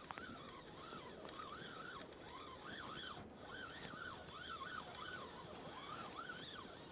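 Fishing reel being cranked while a hooked brown trout is fought, giving a faint whine that rises and falls with each turn of the handle, about two turns a second.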